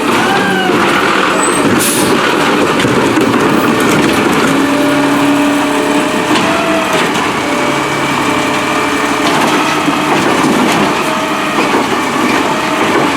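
Peterbilt 320 garbage truck with a New Way Rotopac body running, with short squeals and knocks from the truck and its refuse body working.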